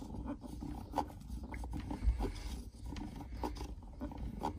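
Plastic dial of a wireless room thermostat being turned by hand: faint rubbing with a few light clicks, over a low steady rumble.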